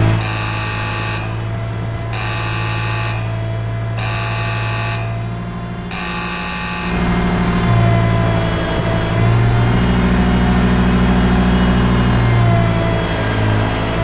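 Ventrac compact tractor's engine running steadily while an electronic warning beeper sounds four times, each beep about a second long and about two seconds apart. After the beeps stop, the engine note rises and falls as the tractor works its way up the steep slope.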